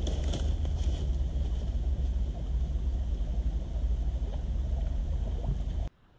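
Wind buffeting the microphone: a steady low rumble with a faint hiss over it, which cuts off suddenly near the end.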